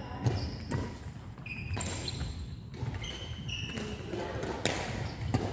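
Badminton rally on a wooden sports-hall court: several sharp racket hits on the shuttlecock and short high squeaks of shoes on the floor.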